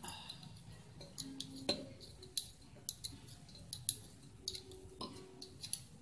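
Irregular light metallic clicks and clinks of a hand tool working the 10 mm bolts on a refrigerator compressor's valve plate as they are tightened down.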